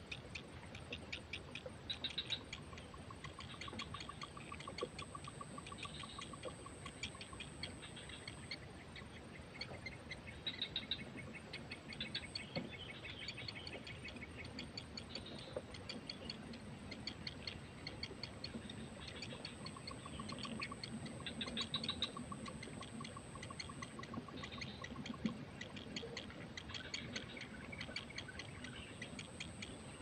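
Heron nestlings in the nest giving rapid ticking begging calls, in brighter bursts every couple of seconds, over a steady high whine. Twice there is a run of quick lower-pitched pulses, each lasting about four seconds.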